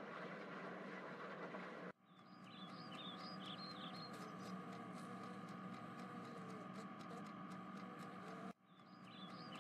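Faint background ambience: a steady hiss and hum with small high chirps repeating. It cuts out briefly twice, and the same chirps start over after the second cut.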